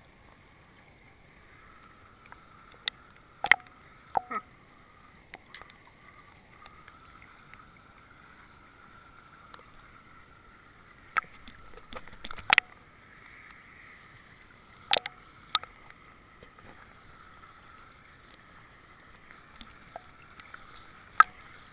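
Pool water sloshing and lapping around a camera held at the surface, with a scattering of sharp taps and splashes, the loudest about three and a half seconds in and again around twelve seconds.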